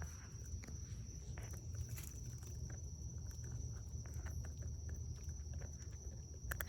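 Faint scattered clicks and rustles from a raccoon moving about and handling food, over a steady high-pitched drone of night insects.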